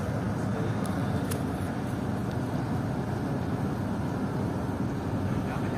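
Steady low mechanical rumble, with a couple of faint clicks about a second in.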